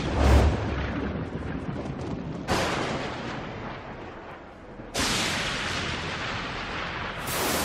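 Thunder-crash sound effects: a deep boom at the start, then three more sudden crashes about every two and a half seconds, each fading away slowly.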